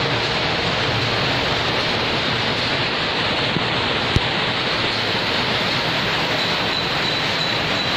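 Many power looms running together: a loud, steady, dense mechanical din, with one sharp click about four seconds in.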